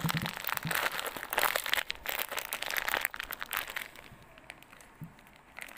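Plastic packaging, a clear pouch and bubble wrap, crinkling as hands open it and handle it. The crinkling is dense for the first three and a half seconds or so, then dies down.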